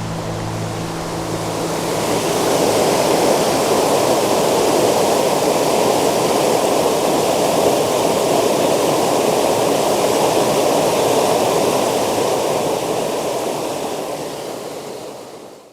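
Water of a small creek cascade rushing steadily over rock, fading out over the last couple of seconds.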